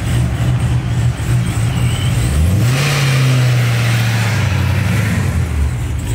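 Chevrolet Camaro SS V8 exhaust running at low revs, then rising in pitch about two and a half seconds in and holding there for about three seconds before easing off as the car pulls away.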